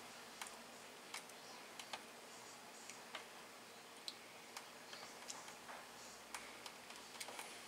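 Faint, irregular small clicks of needle-nose pliers and fingers handling the wire end of a coiled electric-shower heating element as it is gripped and stretched out.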